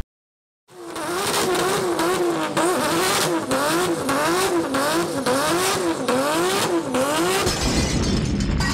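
An engine revving up and down over and over, its pitch rising and falling a little faster than once a second. It starts after a moment of silence.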